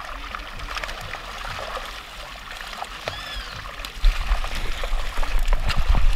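Water splashing and trickling as tambaqui crowded in a seine net thrash in shallow pond water, with scattered small splashes. A short chirp comes about three seconds in, and a louder low rumble sets in about four seconds in.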